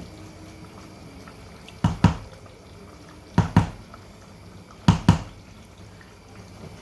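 Pot of risotto simmering, with thick bubbles plopping in three pairs of short pops about a second and a half apart over a low steady background.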